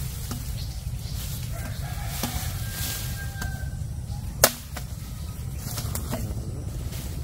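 A small lightweight chopper blade striking a bamboo stalk: several light knocks and one sharp, loud chop about four and a half seconds in, over a steady low rumble.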